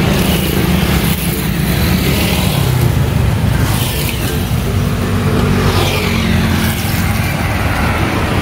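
Road traffic: a steady engine hum from motorbikes and cars, with vehicles passing by every few seconds.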